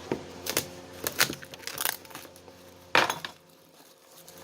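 Handling of a sealed box of trading cards: a series of short sharp clicks and knocks, the loudest about three seconds in.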